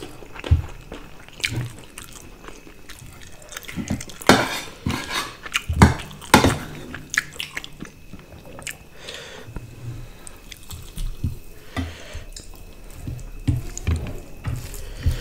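Eating sounds: chewing, and wet squelching and smacking of fingers mixing rice with curry by hand, with irregular clicks throughout and a denser, louder cluster about four to six and a half seconds in.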